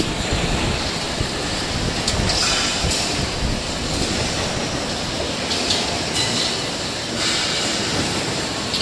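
2D CNC wire bending machine running, a steady mechanical clatter with brief high metallic squeals about three times as steel wire is fed and bent.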